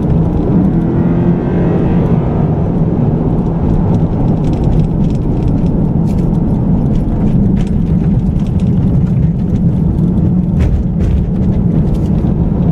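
Lexus IS F's 5-litre V8 and tyre noise on rough pavement, heard from inside the cabin as the car drives. The engine note rises in pitch in the first couple of seconds, and light clicks and rattles come in the later part.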